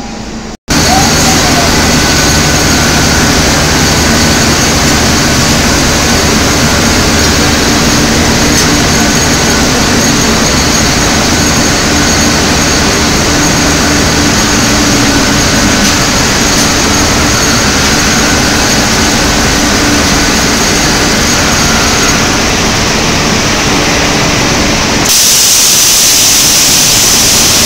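Steel-melting furnace in operation, a loud steady industrial rushing roar with a faint hum under it. About 25 seconds in, the deep part drops away and a brighter hiss takes over.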